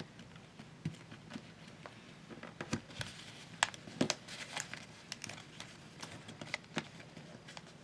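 Sheet of paper being folded and creased by hand: scattered soft crinkles and sharp little crackles as the paper is pressed down.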